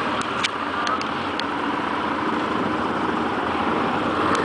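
Yamaha XT660R motorcycle's single-cylinder engine running steadily while riding, with wind rushing over the microphone and a few light clicks in the first second and a half.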